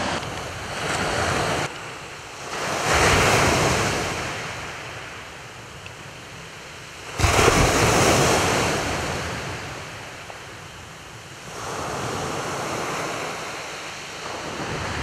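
Waves breaking and washing over a shingle beach, swelling and fading in several surges.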